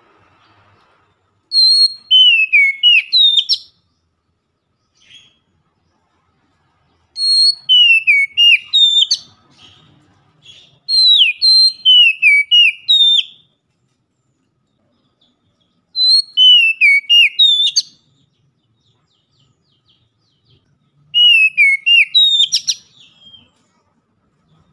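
Oriental magpie-robin (kacer) singing loud whistled song phrases: five phrases of about two seconds each, a few seconds apart, made of quick falling and rising whistled notes.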